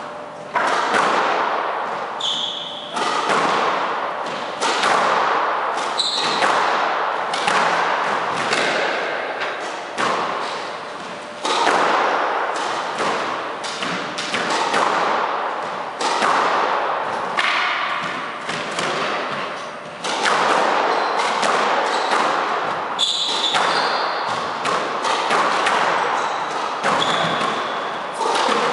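Squash ball being hit in a rally: a sharp impact every second or two as rackets strike the ball and it hits the walls, each echoing in the enclosed court. Short shoe squeaks on the wooden court floor come in between.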